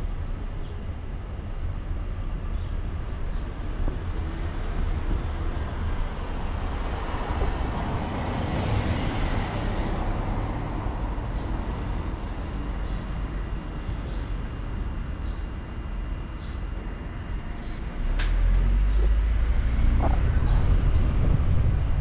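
Car driving through town traffic: steady road and engine rumble, with a swell of noise that rises and fades in the middle. A sharp click comes near the end, after which the low rumble grows louder.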